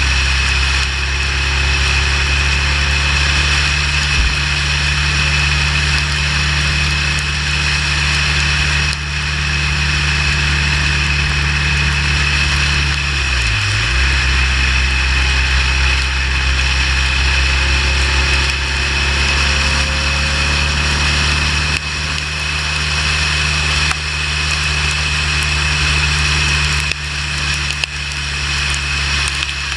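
Motorcycle engine running steadily at highway speed under heavy wind and tyre noise. About thirteen seconds in, the engine note dips briefly and comes back, as with a gear change or a roll-off of the throttle.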